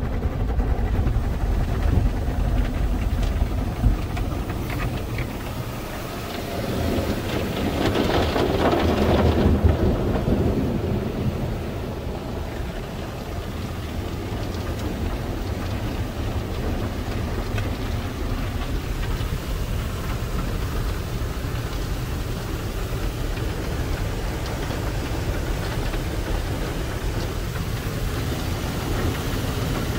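Water from an Autec AES-425 automatic car wash's spray arches drumming on the car's body and windows, heard from inside the cabin as a steady rush. It swells louder for a few seconds about a third of the way through, then settles back.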